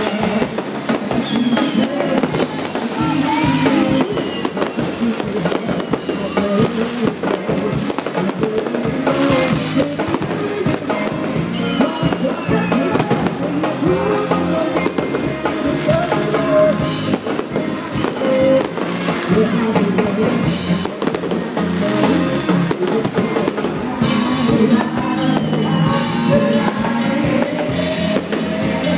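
Loud music with drums from an outdoor stage, mixed with fireworks going off.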